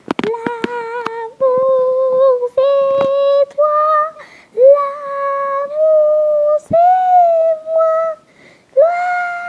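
A high voice singing a slow tune in long held notes of about a second each, with a few handling clicks near the start.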